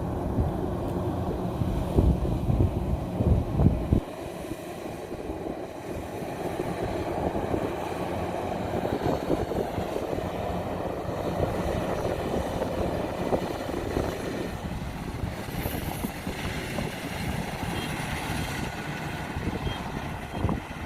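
Combine harvester running in a rice field with a steady machine drone. A heavier low rumble with a few knocks over the first four seconds drops to a steadier, lighter sound.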